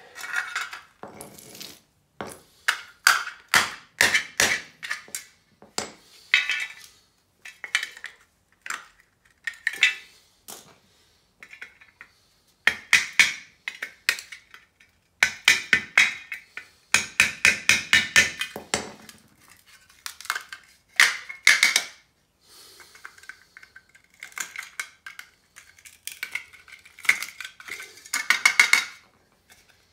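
Hammer and hand tools striking a hollow sterling silver piece in rapid clusters of ringing metal knocks, breaking out the plaster filling of weighted silver. Some runs go at several strikes a second, with short pauses between them.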